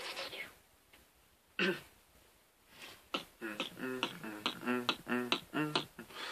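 Vocal beatboxing done with the mouth: a short sound at the start and one brief burst, then from about three seconds in a quick, even beat of clicks and short hummed notes, about four a second.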